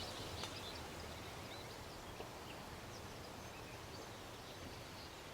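Faint outdoor ambience: a steady low background hiss with scattered distant bird chirps.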